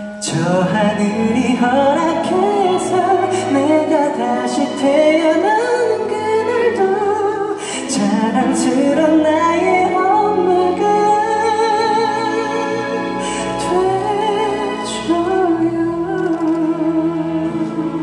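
Male vocalist singing a Korean ballad live into a microphone, with long held notes and vibrato, backed by an orchestra.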